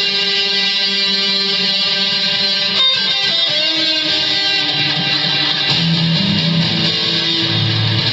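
Electric guitar played through a Boss ME-20 multi-effects pedal. A held chord rings for about three seconds, then there is a fresh strum, and lower notes move about in the second half.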